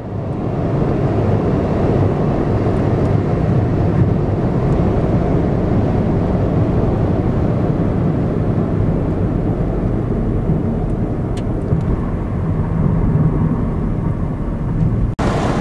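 Steady drone of a car driving at highway speed, heard from inside the cabin: tyre and engine noise, with a brief dropout near the end.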